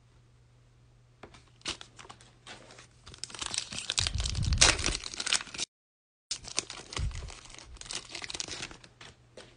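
A shiny foil trading-card pack wrapper being torn open by hand and crinkled, loudest about four to five seconds in. The sound cuts out completely for about half a second midway, then the crinkling goes on.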